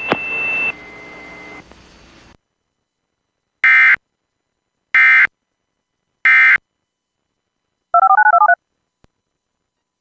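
Three short bursts of EAS SAME digital data tones, a harsh buzzing screech about a second and a half apart: the end-of-message code that closes an Emergency Alert System broadcast. A quick string of touch-tone (DTMF) beeps follows near the end.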